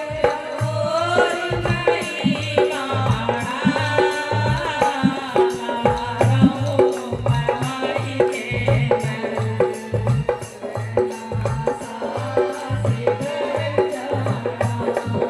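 Indian devotional music: a steady hand-drum rhythm like tabla, with a gliding melodic line over it.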